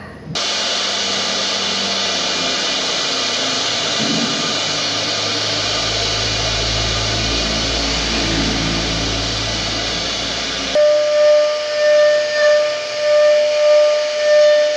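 CNC router spindle cutting into wood: a steady hiss of cutting with a low hum under it. About eleven seconds in it gives way to a steady high whine whose loudness swells and falls about twice a second as the bit works through the wood.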